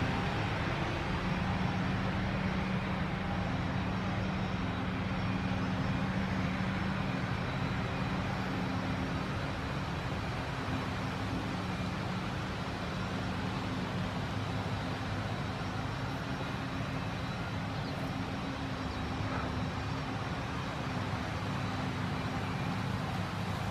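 John Deere 7350 self-propelled forage harvester chopping grass silage: its engine and cutterhead give a steady drone over an even rushing noise, mixed with the John Deere tractor pulling the trailer alongside.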